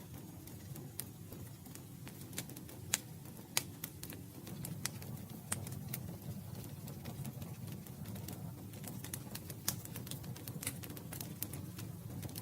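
Campfire burning: a low steady rumble of flames with irregular sharp crackles and pops from the wood, a few of them louder snaps.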